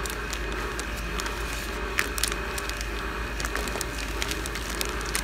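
Clear plastic bagging film crinkling and crackling as it is handled and a wet laminate is slid inside it, many small sharp crackles scattered through, over a steady low hum.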